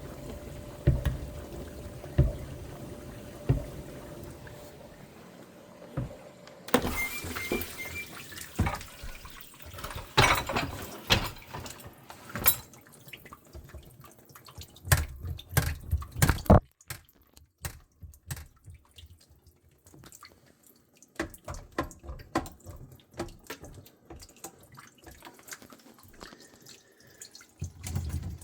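GE GDP665SYNFS dishwasher running, with water splashing inside and irregular sharp knocks. The knocks come thickest about ten to sixteen seconds in, then turn sparser and quieter.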